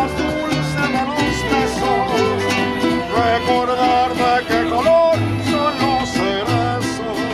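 Background music: an acoustic country-style song with guitar and other plucked strings over a steady bass.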